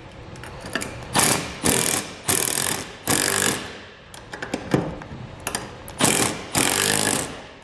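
Cordless impact driver hammering 13 mm bolts tight on a steel ladder-rack clamp bracket, in a series of short bursts of motor whine and rapid impacts, while a wrench holds the nut behind.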